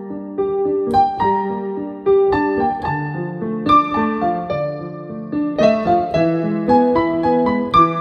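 Digital piano played with both hands: held chords with a melody above them, new notes struck about twice a second and fuller chords every second or two.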